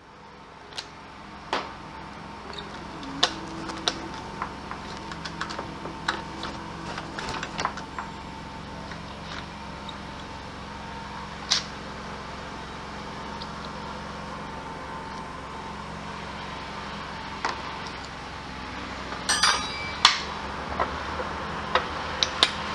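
Scattered metallic clicks, taps and clanks of hand tools handled and used on a scooter, over a steady low hum, with a quick run of louder clanks near the end.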